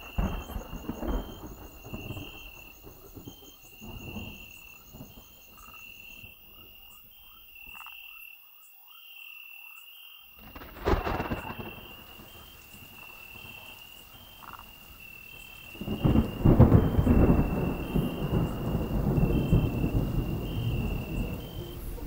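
Night rainstorm: rain falling with thunder, a sharp crack about halfway through and a long low rumble of thunder, the loudest sound, starting about two-thirds of the way in. A frog calls throughout, a short high note repeating steadily a little faster than once a second.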